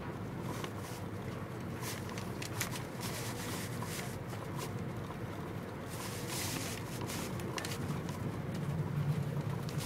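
Steady low rumble of a moving train heard inside the carriage, with brief rustles and clicks as hand-lettered paper cards are slid through a paper sleeve, a longer rustle about six seconds in.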